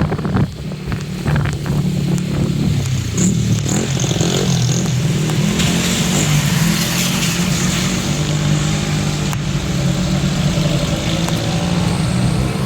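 Road traffic: car engines running with a steady low drone, and the hiss of tyres on the road.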